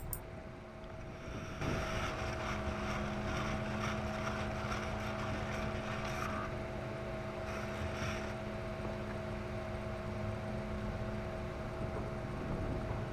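Micro Power-Pole shallow-water anchor's electric motor running steadily as it pulls its spike up from the creek bed, a steady hum that starts about a second and a half in.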